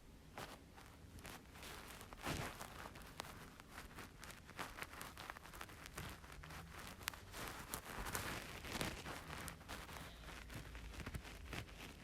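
Faint, irregular clinks and scrapes of a spoon mixing pitted dates into warm milk in a bowl.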